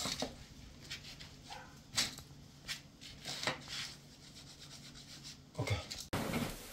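Wooden floorboard strips sliding and rubbing wood on wood as gloved hands push them into place on the subfloor, dry-fitted without glue: several short, quiet scrapes a second or so apart.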